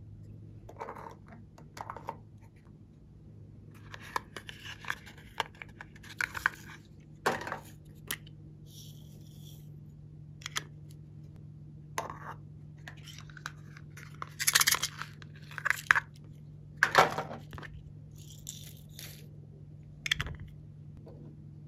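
Hands handling small plastic containers: scattered clicks and snaps of plastic lids and parts, loudest in a cluster past the middle, with stretches of scratchy rustling and scraping, over a low steady hum.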